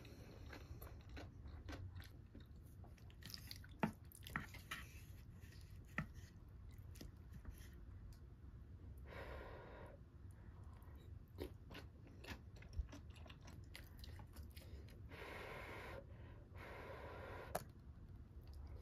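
Close-up eating sounds: someone chewing a mouthful of radish-salad bibimbap, with a few light clicks and scrapes of a wooden spoon against the bowl.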